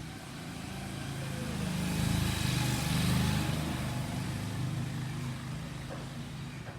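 A motor vehicle engine running, growing louder to a peak about two to three seconds in and then slowly fading, like a vehicle going past.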